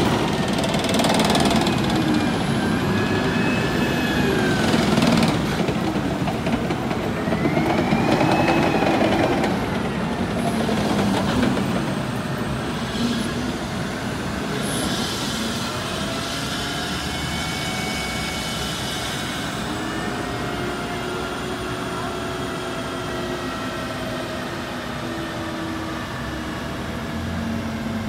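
Tracked main battle tanks driving past and turning on an asphalt street: a heavy engine rumble with their steel tracks squealing, the squeals gliding up and down in pitch. The noise is loudest for the first ten seconds or so, then eases to a steadier, quieter run.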